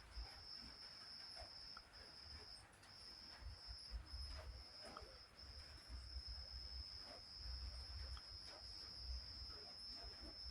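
A cricket chirping in a steady high trill, broken by a few short gaps, over a faint low rumble.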